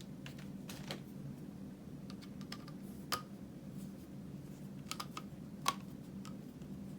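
Irregular light clicks and taps of small plastic parts being handled and adjusted on an RC transmitter's thumb steering adapter. The sharpest click comes about three seconds in and another about five and a half seconds in, over a steady low hum.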